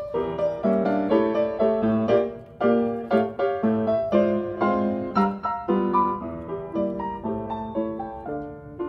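Background music: solo ragtime piano playing a lively, quick run of notes.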